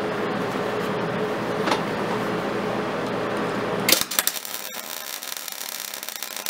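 A steady background hum for about four seconds. Then a MIG welder strikes its arc with a sharp crack and runs in a steady crackling sizzle, welding a railroad spike onto a steel horseshoe.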